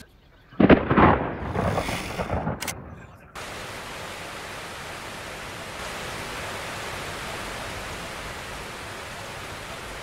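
A sudden loud rumble about half a second in, fading unevenly over about three seconds, then a steady even hiss.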